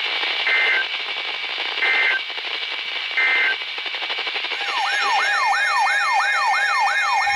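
Radio hiss with three short two-tone data bursts, the EAS/SAME end-of-message code that closes a NOAA Weather Radio alert. About four and a half seconds in, a siren-like alarm tone starts, rising sweeps repeating about three times a second.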